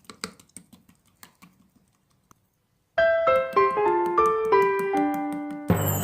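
A short melody of single keyboard-like notes, about nine of them over nearly three seconds, after faint scattered clicks that fade out and a moment of near silence. A loud burst of noise starts near the end.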